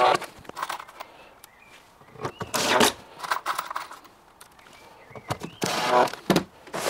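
Cordless drill driver running in three short bursts, driving 4x25mm screws into a wooden cabinet panel.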